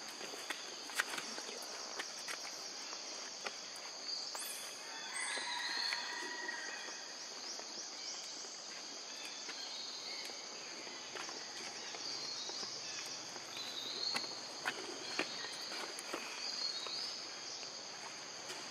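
Steady high-pitched drone of a forest insect chorus, with a few short chirps and scattered faint ticks and rustles over it.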